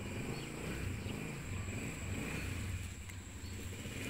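Steady outdoor background: a low rumble with a faint, steady high-pitched tone above it.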